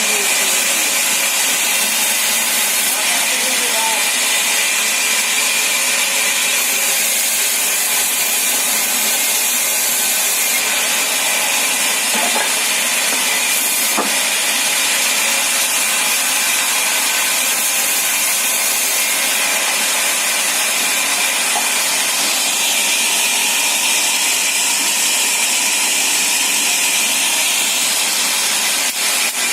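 Sawmill saw running steadily through wood, a continuous loud rushing noise with a constant high whine.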